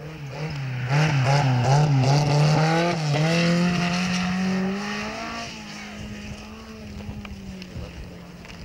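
Rally car engine revving hard as the car slides past on snow, its pitch rising and dipping several times in quick succession as the throttle is worked. Then a steadier note fades away as the car pulls off, about five seconds in.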